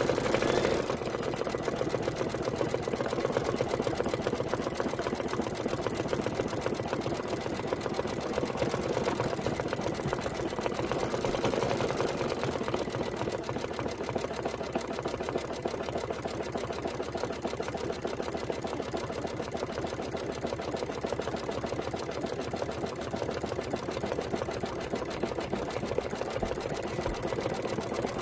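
Computerized embroidery machine stitching out an appliqué design in the hoop, its needle running in a rapid, steady rhythm.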